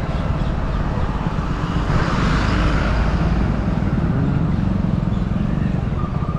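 A two-wheeler's small engine running steadily while riding at low speed, with a fast, even pulsing rumble under road and wind noise. The rush of noise swells about two seconds in, then eases.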